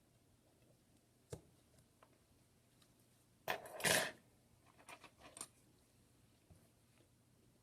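Small metal objects clinking and clattering on a work surface: a single click, then a louder cluster of rattling clinks about halfway through, followed by a few lighter clicks.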